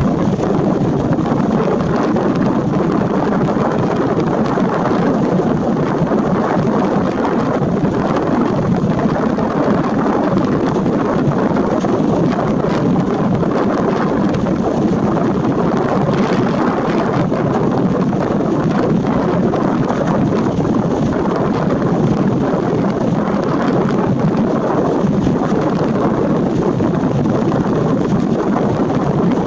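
Steady, loud rushing noise of wind and breaking surf, unchanging throughout, with no bird calls standing out.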